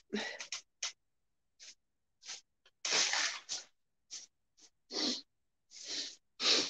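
A woman's fit of sneezing and coughing brought on by her pollen allergy: about a dozen short bursts in a row, the longest and loudest about three seconds in.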